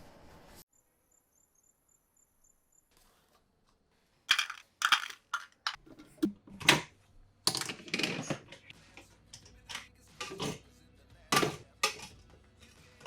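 A series of sharp clacks and knocks from objects being handled and set down in a kitchen, about a dozen at irregular intervals, starting a few seconds in after a near-silent gap.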